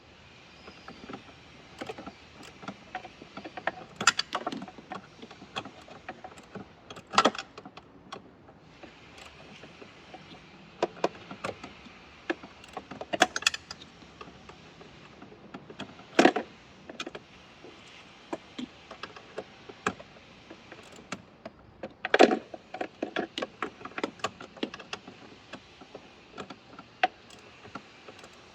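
Irregular clicking and clanking of hand tools and metal parts being handled, with a few sharper knocks among them.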